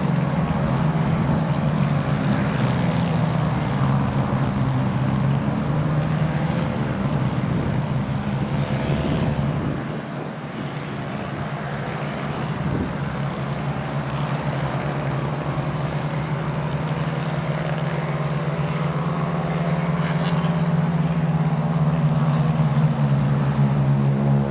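Small racing kart engines droning as karts lap the circuit. The sound dips about ten seconds in, then builds again.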